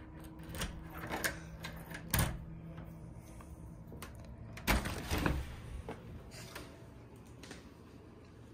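A key going into a front-door deadbolt and turning it, a run of sharp metallic clicks, then the door unlatching and opening. The loudest knocks come about two seconds in and again about five seconds in.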